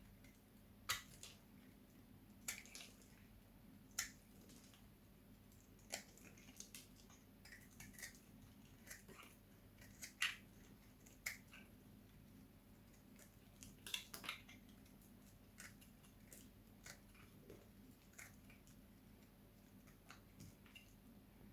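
Knife cutting dried soap: crisp cracks and snaps at irregular intervals, a few much louder than the rest.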